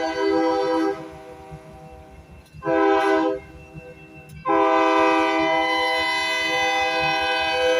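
Locomotive air horn on a GE AC4400 leading a freight train, a steady multi-note chord: a blast that ends about a second in, a short blast around three seconds, then a long blast from about four and a half seconds that is still sounding, the long-short-long of a grade-crossing warning. A low train rumble runs underneath.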